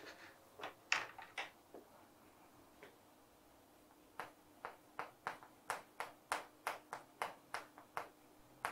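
Chalk writing on a blackboard: faint, short taps and scrapes of the chalk, about two strokes a second from about four seconds in. A few single light knocks come about a second in.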